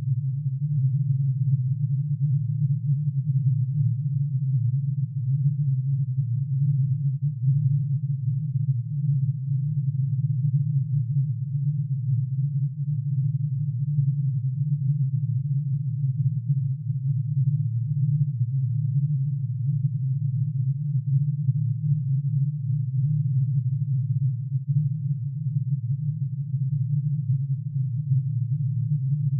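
Synthesized drone made by summing a sine wave for every line in plutonium's atomic emission spectrum, shifted down into hearing range: a steady, low, dense cluster of tones with a slight beating flutter and no change in pitch.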